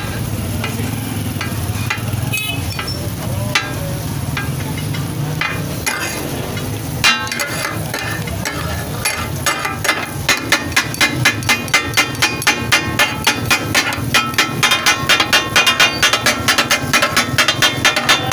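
Heavy metal takatak spatula striking a flat iron griddle, chopping tomatoes and onions in sizzling oil. The clanks come one at a time at first, then settle into a fast, steady beat of about four strikes a second from about ten seconds in. Hot oil sizzles throughout.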